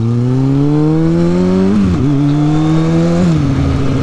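Sport motorcycle's engine accelerating hard, its pitch climbing steadily, dipping briefly about two seconds in as it shifts up, climbing again, then falling to a steady lower note a little past three seconds in.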